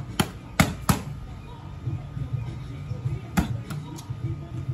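Boxing gloves smacking focus mitts in quick combinations: three sharp hits in the first second, then two more about three and a half seconds in.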